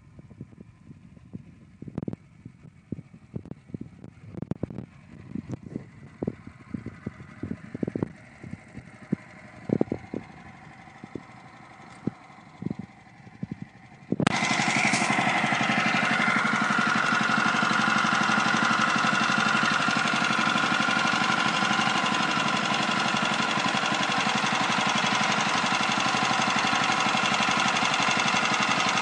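Scattered knocks and clunks of wood and metal, then about halfway through the portable bandsaw mill's gasoline engine starts running loud and steady at high speed.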